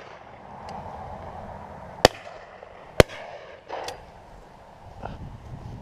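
Two close shotgun shots about a second apart, both barrels of a double-barrelled game gun fired at a driven bird, each a sharp crack with a short echoing tail. Fainter, more distant shots from other guns come before and after them.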